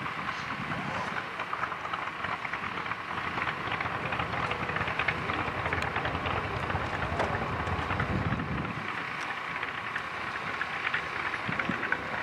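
Aircraft engines running: a rough, crackling rush with a faint steady whine held throughout.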